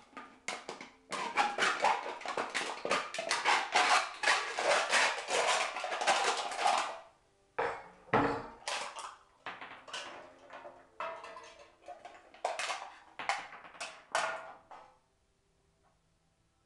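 Hacksaw sawing through an aluminium Guinness Draught beer can in quick strokes for about six seconds, then a knock and several shorter spells of sawing and metal clatter that stop about fifteen seconds in.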